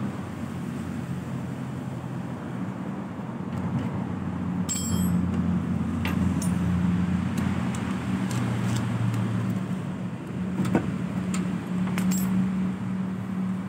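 Two-stroke Vespa engine running steadily at idle, its low hum shifting slightly in strength, with a few sharp metallic clicks over it.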